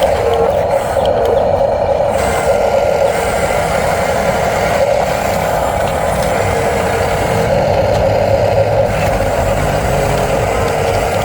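Small radio-controlled construction vehicles running with a steady mechanical whirr that holds without a break.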